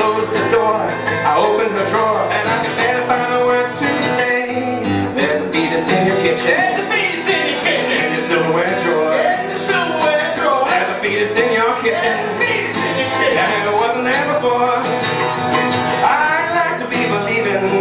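Live acoustic guitar strumming and mandolin picking in a bluegrass-style song, with a man singing over them at times.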